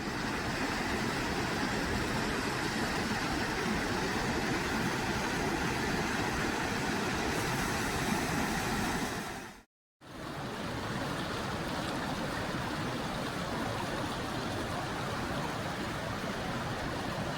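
Steady rushing roar of falling water from a waterfall, cutting out briefly about ten seconds in before resuming.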